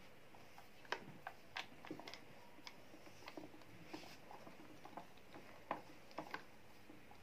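Faint, irregular small clicks of a screwdriver turning a screw, with a washer, into a stand fan's plastic motor housing to fasten the oscillation arm.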